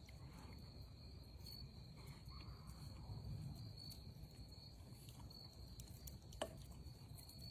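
Faint crickets trilling steadily on one high pitch, with a single sharp click a little over six seconds in.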